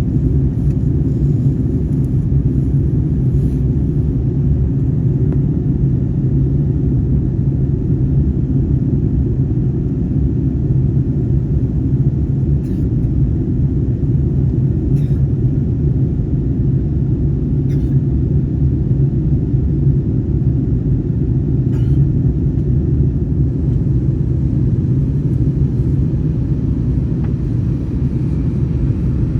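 Steady low rumble of an airliner heard from inside the passenger cabin: engine and airflow noise, even throughout, with a few faint ticks.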